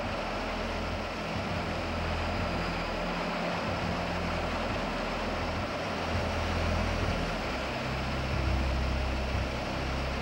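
Steady jet noise of A-10 Thunderbolt II attack jets' twin turbofan engines in flight, with a low hum underneath that shifts in pitch every few seconds.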